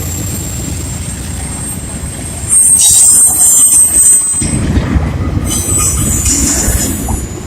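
Train passing close by: the rumble of rail cars with a thin, high wheel squeal over it, getting louder about two and a half seconds in.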